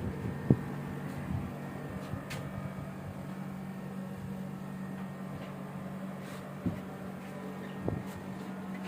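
Steady low hum of a running Daikin air conditioner unit, with a few short knocks or clicks scattered through it.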